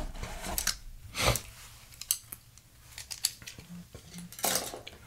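Hands handling a small metal tool and the cardboard toy box: a string of light clicks, taps and scrapes, loudest about a second in and again near the end.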